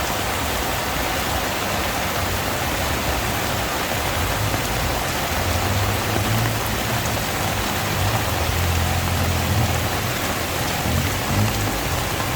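Heavy rain pouring steadily, with a low rumble swelling and fading in the middle.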